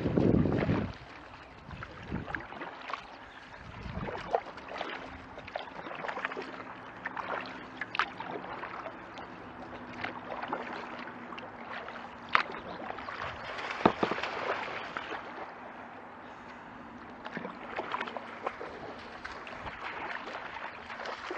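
Kayak paddling on calm water: paddle blades dipping and splashing at irregular intervals, water trickling, and a few sharp knocks. Wind buffets the microphone briefly at the start.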